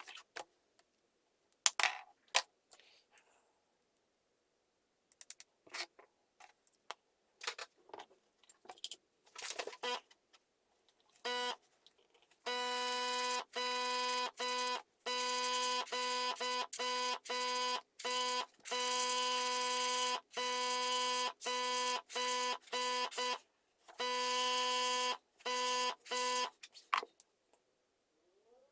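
Small electric airbrush compressor buzzing steadily, switching off and on in short, abrupt gaps through the second half. Before it come scattered clicks and taps.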